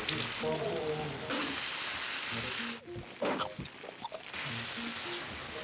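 Dakgalbi (spicy stir-fried chicken) sizzling in a large hot pan close to the microphone. The sizzle drops away briefly about halfway through, with a few light clicks, then comes back.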